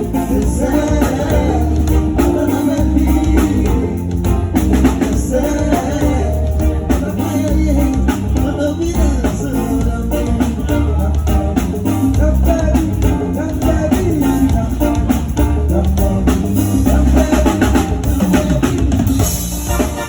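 A live band playing, with the drum kit prominent: bass drum and snare with rimshots over a heavy low bass line and other instruments.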